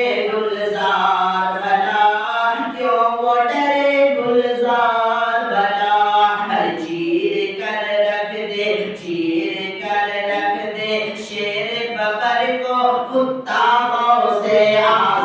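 A man's voice chanting an Islamic devotional recitation in long, melodic held notes.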